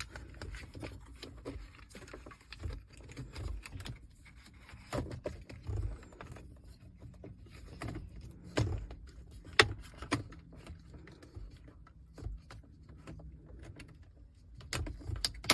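Scattered clicks and knocks of plastic dashboard trim pieces and connectors being handled and pushed into place, with one sharp click about nine and a half seconds in.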